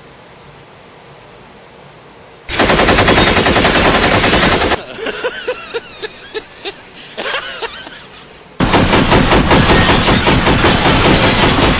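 Rapid automatic gunfire: a long burst about two and a half seconds in, scattered single shots, then a second long burst near the end.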